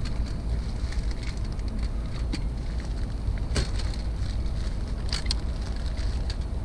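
Low rumble of wind buffeting the microphone, with a few scattered sharp clicks and rustles of handling, the sharpest about three and a half seconds in.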